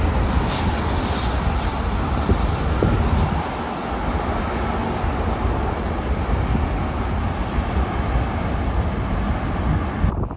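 Rolls-Royce Trent XWB turbofans of an Airbus A350-941 landing: a steady jet rumble, heaviest in the deep bass.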